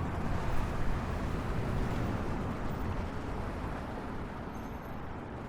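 City street traffic: a steady rumble of passing cars and engines, gradually getting quieter over the last couple of seconds.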